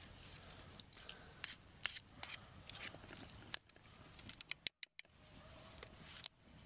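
Campfire crackling: faint, irregular sharp snaps and pops, with a brief drop to silence a little under five seconds in.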